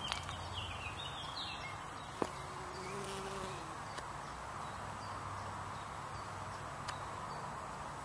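Bees buzzing around flowering plants, a steady low hum with a short rising-and-falling buzz about three seconds in as one passes closer.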